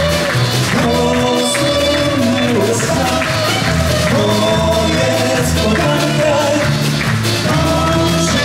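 Live band playing an instrumental passage: accordion and a wind instrument carry the melody over electric guitar and a drum kit beat.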